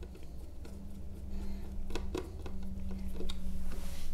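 A few faint clicks and small taps of a screwdriver and fingers on a mini PC's chassis and SSD screw, over a steady low hum.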